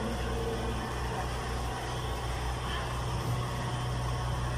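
Steady low machine hum, even in level throughout.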